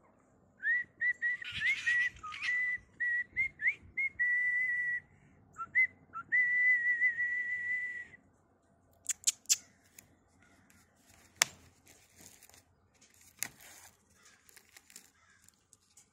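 A person whistling to call foxes in to be fed: a run of short chirpy whistles with quick upward slides, then two long steady whistles, stopping about eight seconds in. A few sharp clicks and knocks follow.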